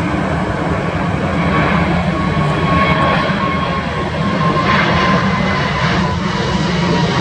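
Airbus A350's Rolls-Royce Trent XWB turbofans at takeoff climb power, passing low overhead with the landing gear retracting. Steady loud jet noise, a deep rumble with a faint high whine over it.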